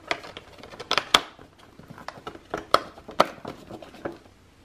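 The cardboard and plastic packaging of a boxed ornament being handled: a series of sharp clicks and taps, loudest about a second in and again around three seconds in.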